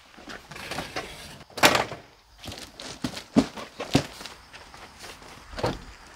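Doors handled and footsteps: a handful of separate knocks and thuds, the loudest about a second and a half in.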